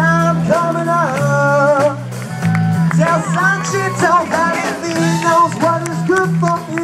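Live rock band playing: a male singer singing a melody into a microphone over electric bass, electric guitar and drums.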